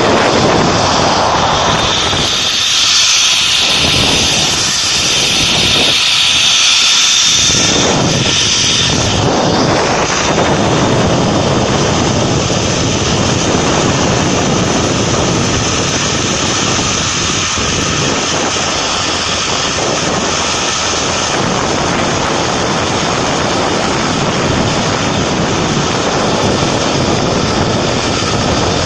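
Zip-line ride at speed: a steady loud rush of wind over the microphone mixed with the trolley running along the steel cable. From about 2 to 9 s in, a high hissing whine with a thin steady tone is louder, then it eases back to a steadier rush.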